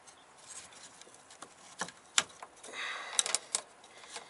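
Small metallic clicks and a short scraping rattle from hands working the fuel filter's clamp and fuel lines while loosening the clamp, with one sharp click about two seconds in and a quick cluster of clicks around three seconds.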